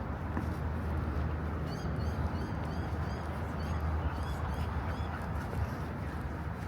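A bird calling in two quick runs of short, repeated high chirps in the middle, over a steady low rumble.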